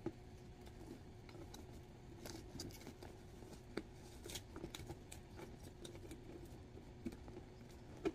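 Light scattered clicks, taps and rustles of a Michael Kors bucket bag being handled, its metal strap hooks clicking as the strap is worked, over a faint steady hum.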